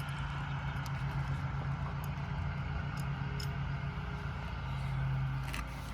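A steady low engine hum, like a road vehicle running nearby, growing louder about five seconds in, with a few faint sharp ticks over it.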